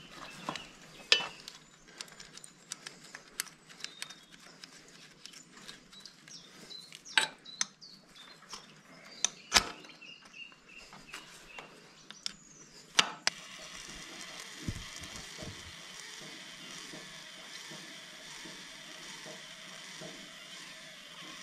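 Scattered metallic clicks and knocks of hands and tools working on the diesel fuel filters of a David Brown 990 tractor engine. About thirteen seconds in, a steady hiss takes over.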